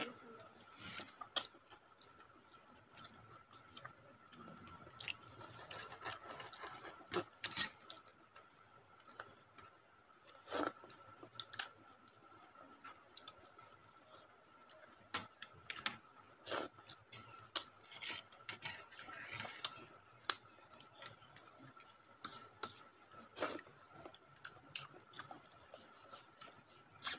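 Quiet eating of a bowl of instant noodles: steel forks clicking and scraping against the bowl at irregular moments, with soft eating noises in between. A faint steady high tone hums underneath.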